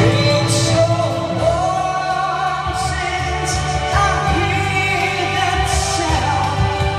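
A man sings into a handheld microphone over a backing music track. The amplified voice holds and slides between long notes above a steady beat.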